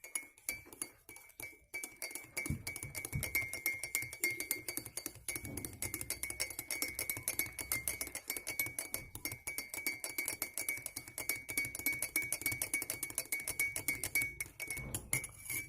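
Spoon rapidly beating an egg mixture in a glass: fast, steady clinking of metal against glass, with the glass ringing a high note until the beating stops near the end.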